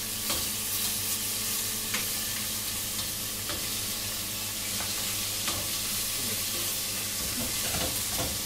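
Pieces of fish frying in oil in a steel casserole, a steady sizzle, with a metal utensil clicking against the pan now and then as the pieces are moved about. A steady low hum runs underneath.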